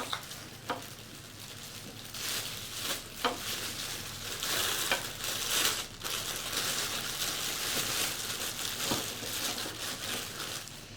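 Plastic packaging and bag crinkling as hands rummage through a shipping box, with a few light clicks and knocks.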